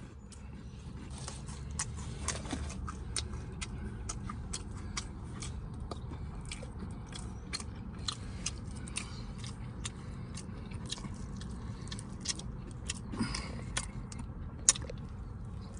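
A person biting into and chewing a Popeyes spicy chicken sandwich close to the microphone: a steady run of wet mouth clicks and crackles, with one sharper click near the end.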